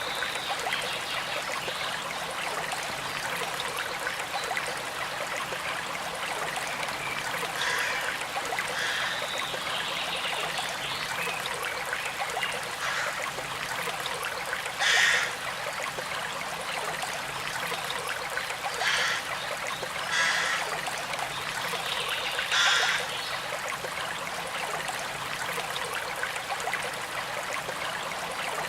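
A flowing river's steady rush of water, with birds calling now and then. A few short, louder calls stand out in the middle and latter part.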